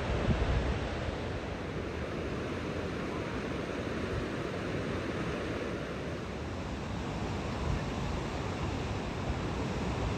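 Steady rush of ocean surf and wind on an open coast, with wind buffeting the microphone as a low rumble that is strongest in the first second.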